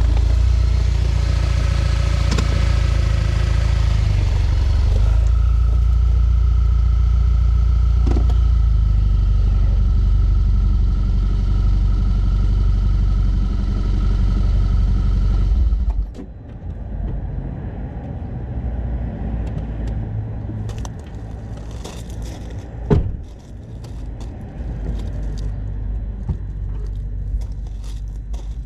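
2012 Audi A4 S tronic drivetrain running with a loud, steady low rattling rumble that drops away suddenly about sixteen seconds in. Quieter car noise follows, with scattered clicks and one sharp knock. The rattle, which comes in reverse under load, was traced to a badly burned clutch caused by a faulty mechatronic unit.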